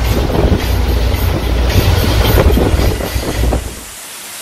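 Motor yacht running at speed: steady engine rumble and churning wake with wind buffeting the microphone, cutting off suddenly near the end.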